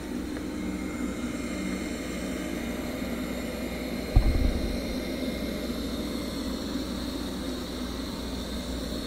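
Roborock Q Revo robot vacuum running on carpet: a steady drone from its suction fan and brushes, with a faint high whine. About four seconds in, a single low thump.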